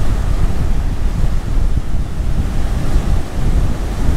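Rough, churning surf breaking on the beach, with strong wind buffeting the microphone and adding a heavy low rumble.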